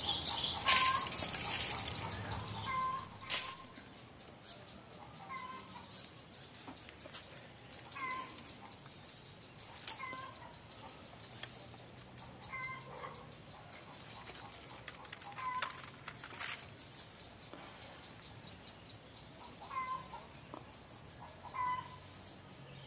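Chickens clucking, short calls repeating every couple of seconds, with a few brief rustles from handling the branches, the loudest in the first two seconds.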